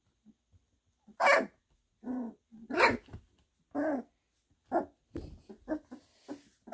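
Goldendoodle puppies about two and a half weeks old giving a string of short yips and barks while playing, roughly one a second. They are young pups just starting to find their voices.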